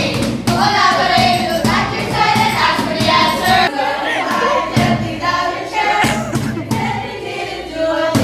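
A small mixed group of teenage voices, male and female, singing a song together, with a box drum (cajón) tapping out a beat underneath.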